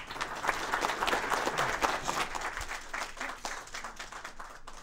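Audience applauding: dense clapping from a roomful of people that starts suddenly and thins out toward the end.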